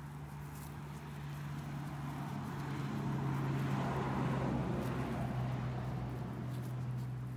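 A vehicle passing by: its noise swells to a peak about four seconds in and then fades, over a steady low hum.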